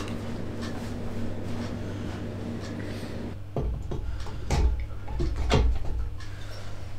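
Fiat 500 engine's cylinder head being handled and lowered over its studs onto the cylinder barrels: a run of about six metal clunks and knocks starting about halfway through, over a steady low hum.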